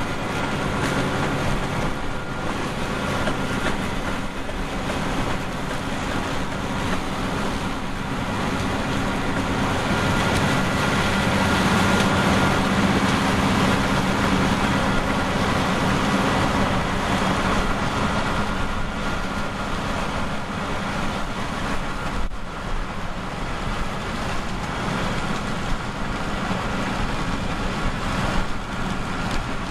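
Heavy farm machinery running steadily in the field, a continuous diesel engine drone with mechanical noise that grows a little louder toward the middle.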